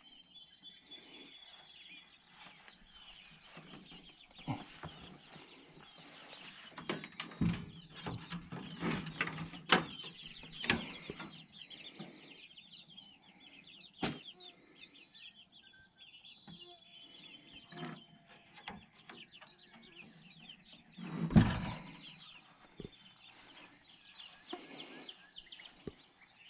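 Outdoor farm ambience: a steady high insect drone with birds chirping. Scattered knocks and low thumps come through, clustered a few seconds in and again near the three-quarter mark, where the loudest thump falls.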